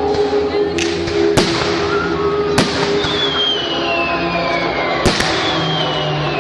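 Fireworks exploding in four sharp bangs, with a long whistle falling slowly in pitch in the middle, over music playing.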